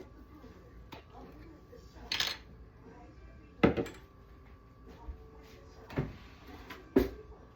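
Kitchen clatter of dishes and utensils: a short rustle about two seconds in, then sharp knocks on the counter, the loudest about three and a half seconds in and two more near the end.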